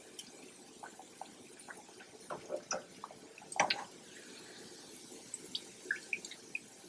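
Hot oil sizzling quietly in a frying pan around fried pork chops as they are lifted out with metal tongs, with scattered light pops and clicks. Excess oil drips off the chops back into the pan.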